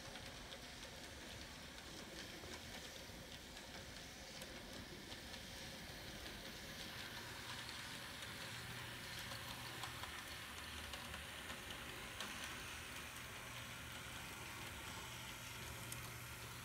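HO-scale model train running on track, faint: a low steady motor hum that comes in about seven seconds in, with scattered light ticks.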